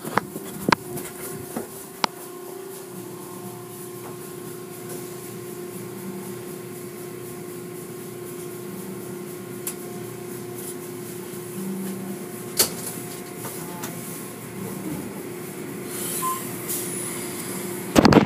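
Automatic car wash tunnel machinery running: a steady mechanical hum with a held pitch over an even wash of noise. A few sharp clicks come in the first couple of seconds, and louder knocks come near the end.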